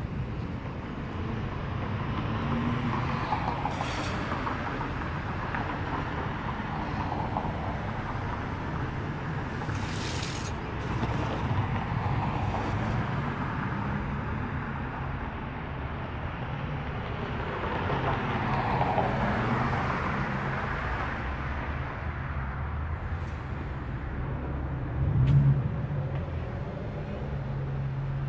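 Car engines running at low speed as cars roll past: a steady low rumble that swells a little past the middle, with a few short clicks and a brief louder burst of engine sound near the end.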